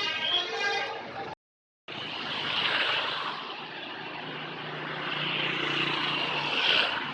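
A bus's multi-tone telolet horn finishing its tune. After a brief cut comes steady vehicle and road noise with a faint low engine hum.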